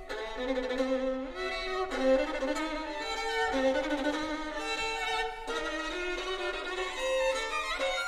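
Background music: a violin playing a melody of held notes that change every half second or so.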